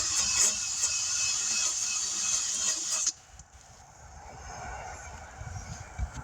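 Rotary buffer wheel running against the inside of a tire, roughing up the rubber around a puncture to prepare it for a patch. It stops suddenly about three seconds in, leaving faint low handling noise.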